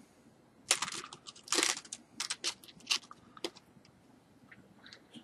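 Small plastic Lego pieces clicking and clattering as they are picked up and pressed into place: a run of sharp clicks over the first few seconds, then a few fainter ones near the end.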